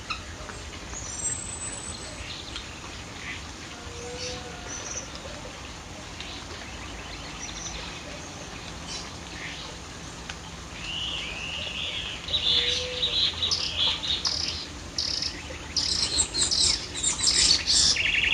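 Several wild birds calling and chirping, sparse at first, then a busy run of quick chirps and trills in the last third.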